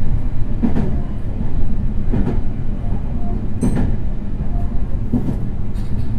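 Meitetsu 3100 series electric train running, heard from inside the car: a steady low rumble with the wheels knocking over rail joints about every second and a half.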